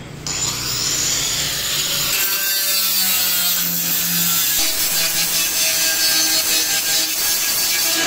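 Handheld electric angle grinder grinding excess weld off the steel frame of a metal gate, a continuous hissing grind with a whine that shifts in pitch, starting just after the opening moment.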